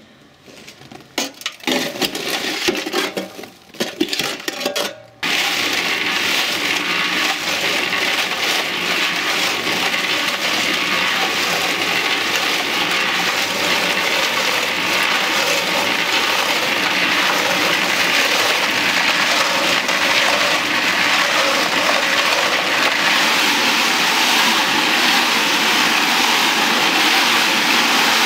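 Electric cement mixer turning a perforated stainless-steel washing-machine drum used as a sieve, with construction ballast tumbling and rattling inside as the sand is sifted out through the holes. The steady, dense rattle starts suddenly about five seconds in, after a few seconds of irregular clattering and knocks.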